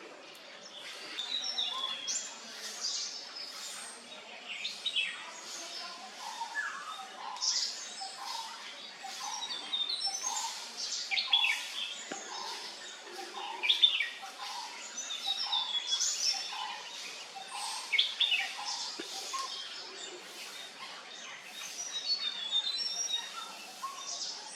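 Wild birds calling and singing together: many high chirps and short song phrases, with a lower note repeated about once a second through most of it.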